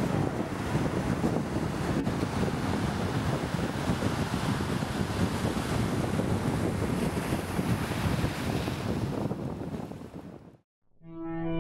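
Ocean surf, a steady wash of waves, fading out about ten seconds in to a moment of silence. A bright chime tone starts right at the end.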